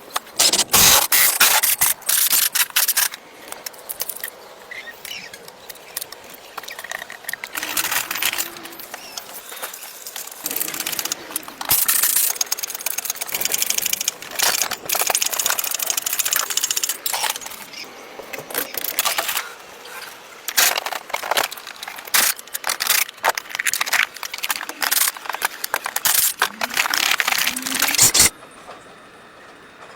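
Irregular work noise: repeated scraping, clattering and hissy bursts, which stop abruptly near the end.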